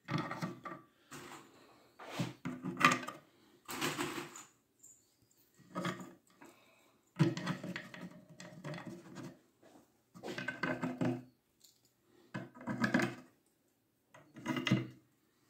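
Small metal screws being handled and screwed into a pine frame by hand: irregular short bouts of clinking and scraping, with gaps between them.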